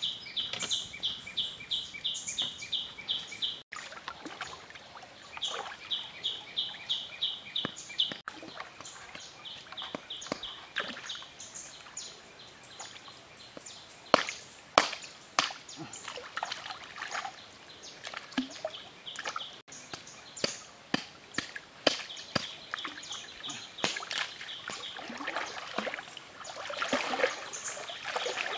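Water splashing and sloshing as a skinned carcass is worked and rinsed by hand in a shallow river, in irregular splashes that are loudest about halfway through and near the end. Behind it, a high chirping call repeats about three to four times a second in runs of a few seconds.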